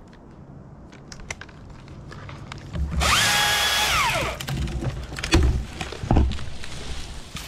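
Husqvarna T540i battery top-handle chainsaw run for about a second as it cuts through a birch limb, its motor whine rising at once, holding, then winding down as the trigger is released. Two heavy thumps follow about two seconds later.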